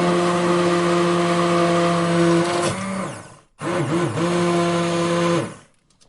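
Electric blender motor running steadily, switched off about three seconds in and spinning down, then switched on again almost at once for about two seconds before stopping and winding down near the end.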